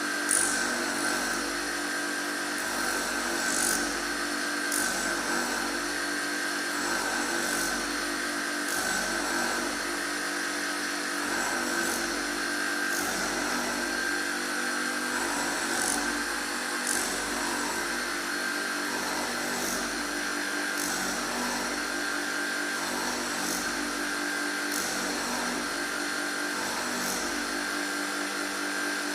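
Surface grinding machine running with a steady whine, with brief high hisses recurring every second or two.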